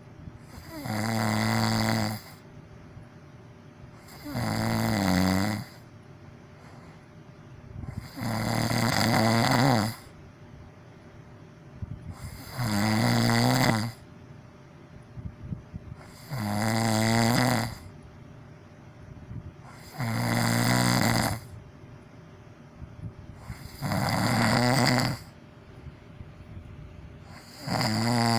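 A person snoring loudly and rhythmically, with a snore roughly every four seconds, each lasting a second or two.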